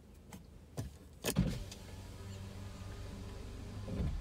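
A couple of light clicks and then a sharp knock about a second in, followed by a steady low motor hum.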